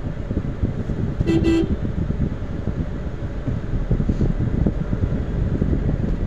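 Two short vehicle horn toots in quick succession, heard from inside a car in slow traffic, over a steady low rumble.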